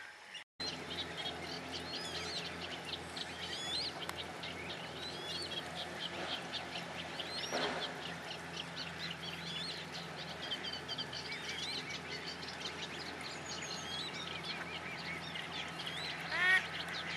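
Chorus of small songbirds chirping and trilling continuously, with a louder run of short falling calls near the end.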